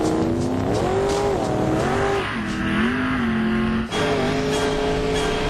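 Engine of a nitrous-boosted modified jeep running at full throttle, its pitch rising and falling. About four seconds in the sound changes suddenly to a steadier engine note.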